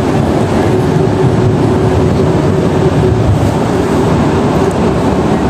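Low-floor tram running, a steady loud rumble heard from inside the car, with a faint steady whine through the first half.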